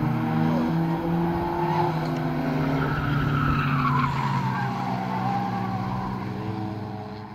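Several oval-track stock cars running together, their engines overlapping, with a falling whine about three to four seconds in; the sound fades out at the end.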